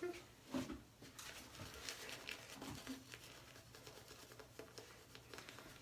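Faint, irregular soft crackling and swishing of a shaving brush working lather on a face.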